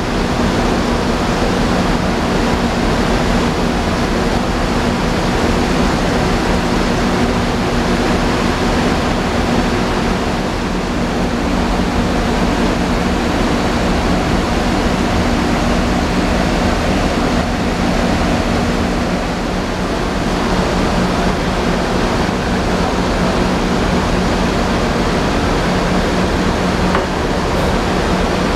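Haryanto HR-024 intercity bus idling close by: a steady diesel engine hum under a wash of noise, with one hum tone dropping out about two-thirds of the way through.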